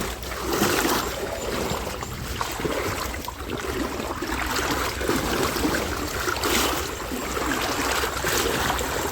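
Shallow river water sloshing and splashing around the legs of someone wading upstream, with a surge of swishing at each stride.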